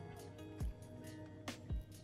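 Background music with a steady beat: held melodic notes over a deep kick drum that hits about half a second in and again near the end.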